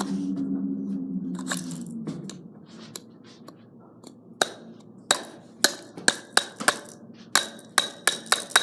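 A toy mini hairdryer's small motor hums, sinks slightly in pitch and dies away about two seconds in. From about four seconds in come sharp plastic cracks and snips, quickening to several a second, as the hairdryer's casing is cut open.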